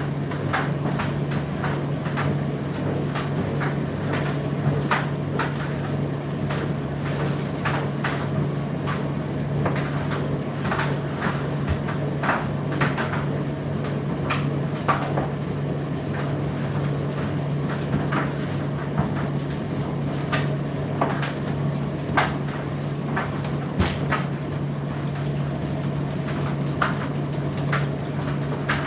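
Indesit IDC8T3 condenser tumble dryer running, with a steady motor hum and frequent irregular clicks and knocks from the load tumbling in the drum.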